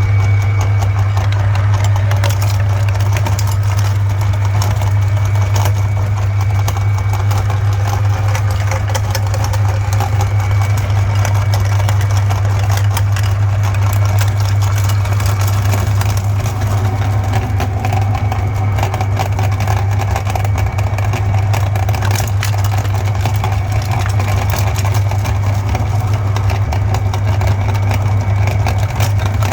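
Electric meat grinder running steadily with a loud low motor hum and continuous fine crackling as chocolate Santa figures are ground.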